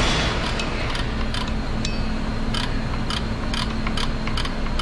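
Screwdriver turning the star-wheel adjuster of a 2005 Chevy Silverado's rear drum brake. It makes a run of sharp, uneven metallic clicks, about three a second, as the wheel's teeth snap past, spreading the shoes outward toward the drum. A steady low hum runs underneath.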